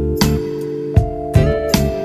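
Background music with plucked and strummed guitar.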